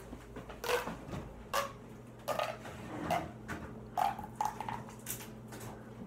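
A child making a series of short puffing noises with her mouth and lips, about seven irregular puffs, imitating a squeaky balloon toy's noise.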